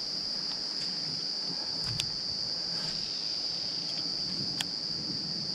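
A steady, high-pitched insect chorus, with two sharp clicks, the first about two seconds in and the second about a second before the end.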